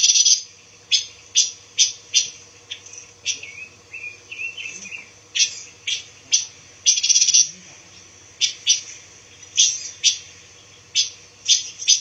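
Pancawarna songbirds calling: sharp, high chip notes repeated irregularly, about one or two a second, with a softer twittering phrase around four to five seconds in and a denser run of calls around seven seconds. A faint steady low hum runs underneath.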